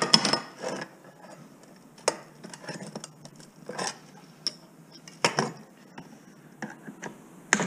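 Flat-blade screwdriver prying at and bending the metal cooling fins of a microwave oven magnetron: scattered sharp metallic clinks and scraping knocks, loudest near the start and about five seconds in.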